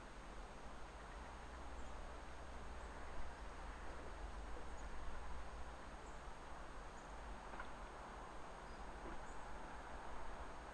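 Faint, still outdoor ambience: a steady low hiss and hum, with small high chirps every second or two.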